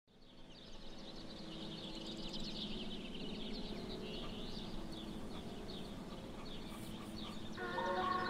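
Many small birds chirping densely over a low steady hum, fading in at the start; about seven and a half seconds in, sustained held tones of music come in beneath the chirping.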